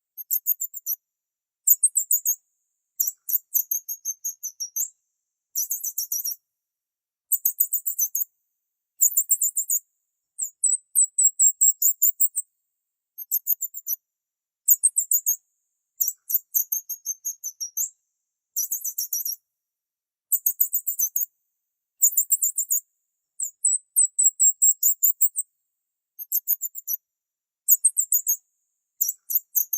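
Small bird chirping in quick runs of very high, thin notes, each run about half a second to a second long with short silent gaps between them, repeating steadily with nothing else to be heard.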